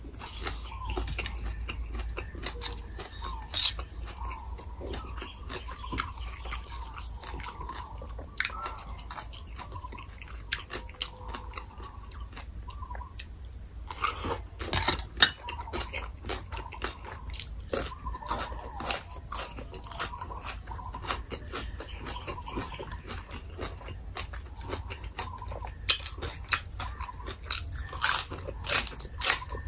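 A person chewing mouthfuls of Thai papaya salad: wet chewing with many small crisp crunches, the crunching louder about halfway and again near the end.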